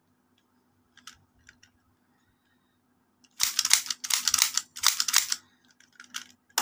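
Plastic toy blowback pistol being worked by hand: a few light clicks about a second in, then a rapid run of plastic clacking from the slide cycling for about two seconds, and a few more clicks near the end.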